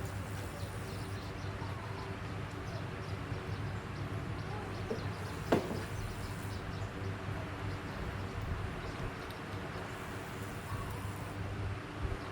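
A steady low machine hum, with one sharp click about halfway through.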